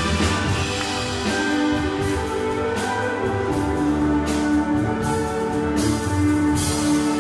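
Live brass band music: long held horn notes over a steady bass and drums, with several cymbal crashes.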